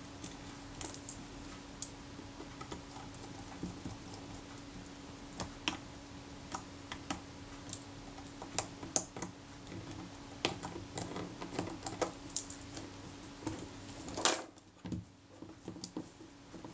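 Scattered small clicks and taps from a Kodak Retina IIIS camera body being handled and its top-plate parts fitted by hand, with one louder handling noise near the end. A faint steady hum runs underneath.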